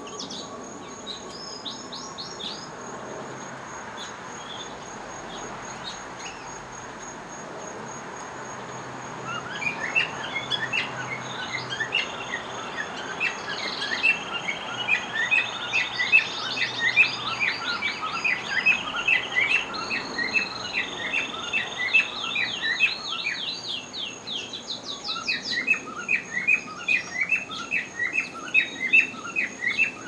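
Canaries singing. After a quieter stretch with a few scattered chirps, loud song starts about nine seconds in: rapid repeated notes and fast rolling trills.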